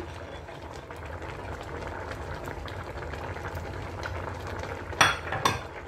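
A pot of tomato and cocoyam porridge boiling on the stove, with a steady bubbling. A couple of short knocks come about five seconds in.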